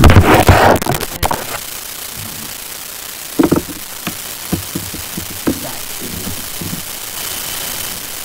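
A steady static-like hiss, with a loud rustling burst in the first second and scattered light knocks and taps after it.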